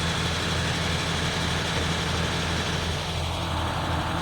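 Septic vacuum truck running steadily, its engine and vacuum pump giving a constant low drone.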